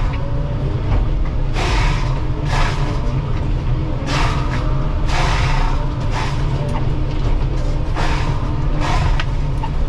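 Excavator engine running steadily under load while a forestry mulcher head spins, with about six loud bursts of grinding as the drum chews into wood.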